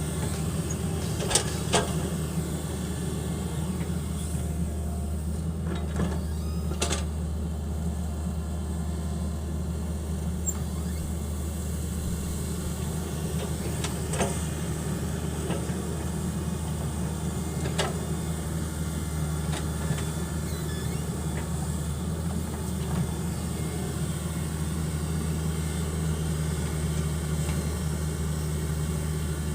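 Hitachi 110 excavator's diesel engine running steadily under work, with a few sharp metallic knocks from the machine's working parts.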